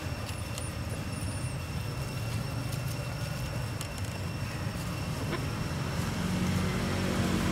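Low rumble of a motor vehicle engine, growing louder near the end as its hum comes closer.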